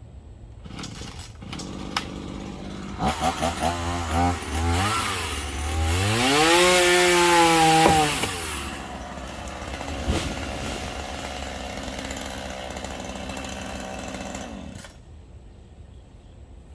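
Chainsaw revved in a few short blips, then held at high revs for about two seconds before dropping back to idle, idling steadily for several seconds and cutting off near the end.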